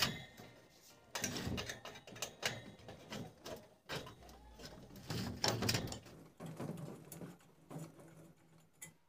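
Chrome wire guard of an electric room heater being worked loose and lifted off by hand: irregular metallic clicks, scrapes and rattles of wire against the sheet-metal reflector.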